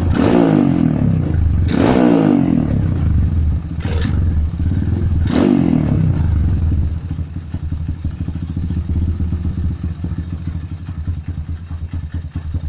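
Honda New Megapro's single-cylinder engine being revved with four quick throttle blips, then dropping back to a steady idle for the second half.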